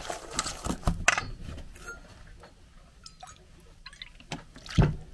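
Wire whisk clinking against a stainless steel mixing bowl of pancake batter, with a few sharp knocks in the first second, a quieter stretch, then two more knocks near the end.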